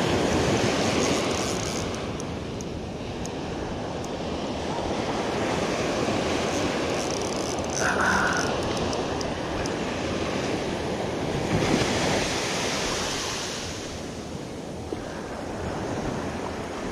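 Ocean surf surging and washing up the shore in slow swells, with wind on the microphone. A brief high note sounds about eight seconds in.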